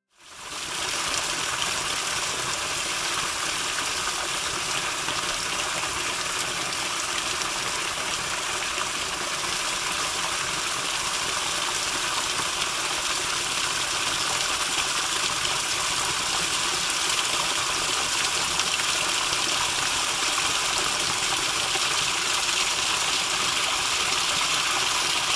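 A shallow, rocky mountain stream with a small cascade, water rushing and splashing over stones in a steady hiss.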